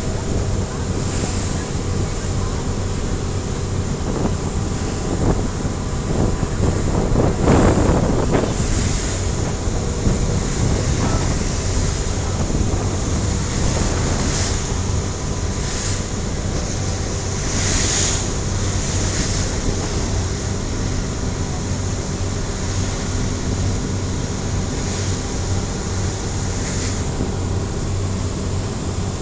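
Boat engine running steadily under heavy wind noise on the microphone, with waves and spray hitting the boat in rough, high seas; the biggest splashes come about seven to eight seconds in and again around eighteen seconds.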